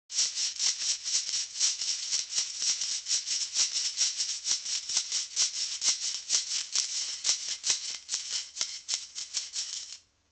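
Wasabi root being grated: a fast, even scraping of about five strokes a second that stops just before the end.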